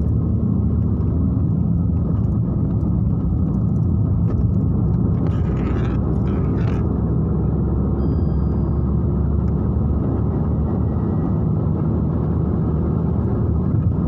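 Road noise inside a moving car's cabin: a steady low rumble of engine and tyres while driving at speed on a highway. Two brief hisses come about halfway through.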